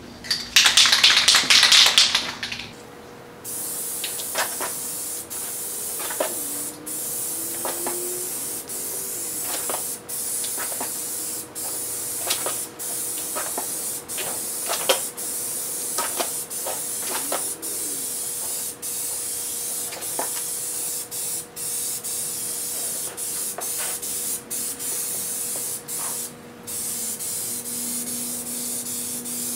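Compressed-air paint spray gun hissing as it lays a second coat of metallic paint on a car fender. It starts with a louder, harsher burst about two seconds long, then runs as a steady hiss that breaks off briefly every second or so between passes.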